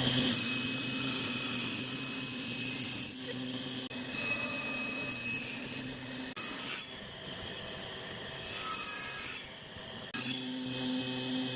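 Table saw running, its blade cutting slots across small pine sticks: several separate cuts, each a spell of high-pitched cutting noise over the saw motor's steady hum.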